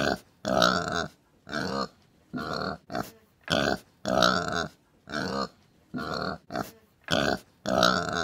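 Domestic pig grunting and oinking in a run of about a dozen calls, roughly one every half to three-quarters of a second, some short and some drawn out, cutting off suddenly at the end.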